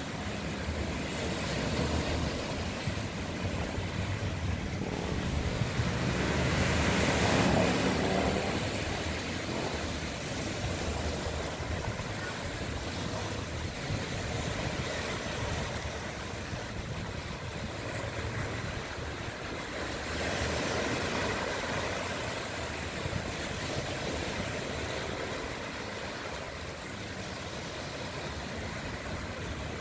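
Small waves breaking and washing up a sand beach, a steady surf rush that swells loudest about seven seconds in and again around twenty seconds.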